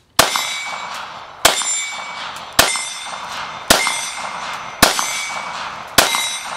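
Six 9mm pistol shots from a Glock 19 Gen 4, fired steadily about one a second. Each shot is followed by the ringing of a struck steel target.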